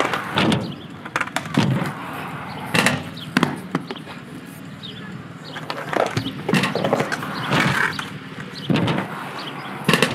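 Aggressive inline skates with Oysi Medium frames rolling on concrete, with repeated sharp clacks as the skates hit and land on a funbox. There is a longer scraping stretch in the middle as the skates grind along its top.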